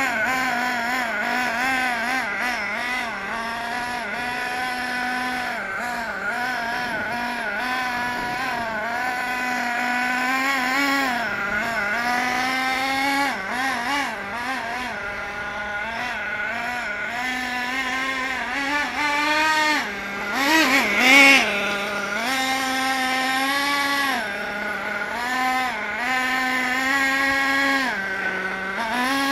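Small nitro glow engine of a Hot Bodies Lightning GT RC car running during break-in, its pitch rising and falling with the throttle, with one brief higher rev about 21 seconds in. It is still tuned fairly rich.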